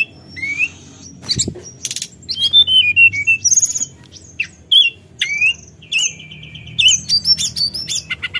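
Caged tledekan gunung (hill blue flycatcher) singing a varied song of clear whistled notes and rising and falling slurs, broken by short harsh rattles and, about six seconds in, a rapid stuttering trill. Its song is full of mimicked phrases.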